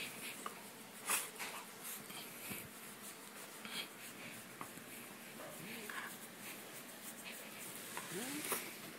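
Dachshund rolling and wriggling on its back on a bedspread: fabric rustling and scratching in short bursts, loudest about a second in and near the end. A few short rising voice-like sounds come near the end.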